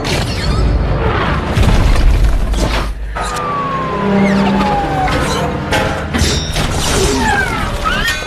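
Transformers-style robot transformation sound effect: a rapid run of metallic clanks and clicks over deep booms. Partway through, a long falling whine sounds, and near the end come short rising servo whines.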